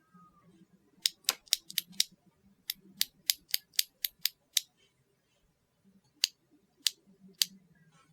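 Stock MZ Studio Z1 mechanical keyboard switches being pressed: two quick runs of sharp clacks, then three single clacks a little over half a second apart near the end.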